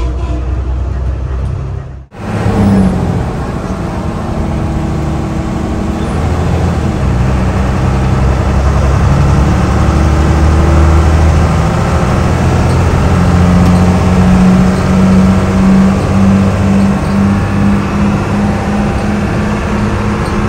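Old bus's diesel engine pulling under load, heard from inside the cabin, with a loud exhaust note that grows louder; in the last few seconds the note pulses.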